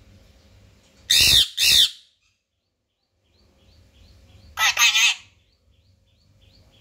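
Rose-ringed parakeet calling: two loud, arching shrieks in quick succession about a second in, then a quicker burst of three harsher notes past the middle.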